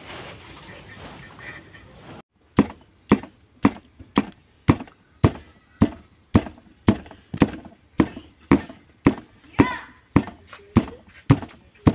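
Raw beef being pounded flat under a plastic sheet: a steady run of dull, even thuds, about two a second, starting a couple of seconds in.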